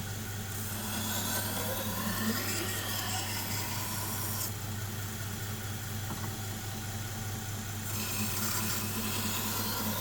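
Belt grinder running with a steady motor hum while a knife blade is ground on the abrasive belt: two hissing grinding passes, one from about half a second in to about four and a half seconds, another starting near the end.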